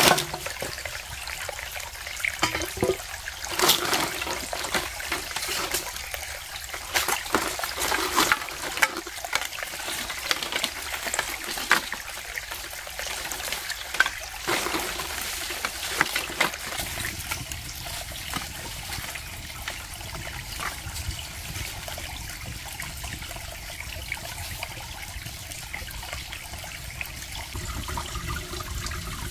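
Rain with water trickling and dripping: many sharp, irregular drop strikes over a steady hiss. After about sixteen seconds the separate strikes thin out and it settles into a steadier rushing hiss.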